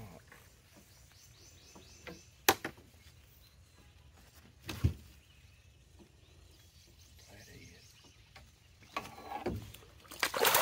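A sharp knock about two and a half seconds in and a duller thump two seconds later, then loud water splashing near the end as a landing net is dipped under a hooked catfish thrashing at the surface.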